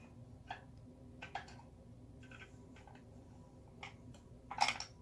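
Faint, scattered ticks and clicks of hands handling a plastic yarn ball winder as a tangled yarn ball is unwound from its cone, with one louder brief rustle near the end.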